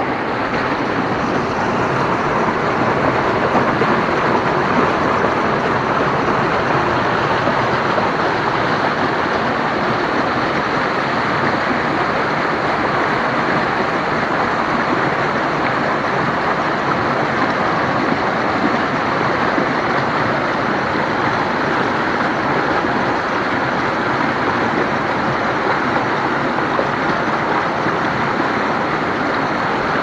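Small waterfall cascading over boulders in a stream: a loud, steady rush of water.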